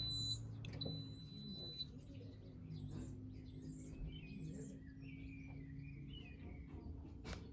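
Zanussi IZ washing machine just after its 1600 rpm spin has wound down: a faint low hum with the drum nearly at rest, a long high electronic beep about a second in, and bird chirps through the rest.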